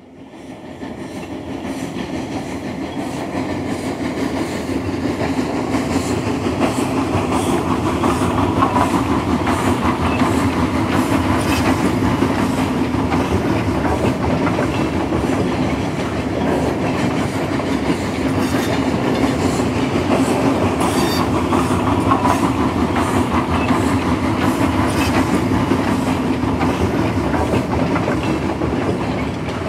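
A train running steadily, with a continuous rumble and rhythmic clicking of wheels over rail joints, fading in over the first few seconds.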